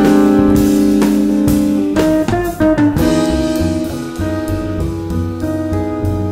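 Jazz guitar-trio music: guitar over a drum kit, a long held chord for about two seconds, then a busier passage from about three seconds in.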